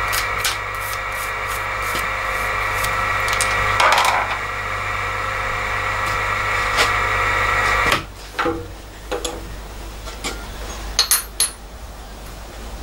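Milling machine running with a steady whine of several fixed pitches, then switching off abruptly about eight seconds in. After that come a few sharp metallic clicks and knocks as the steel vise and workpiece are handled.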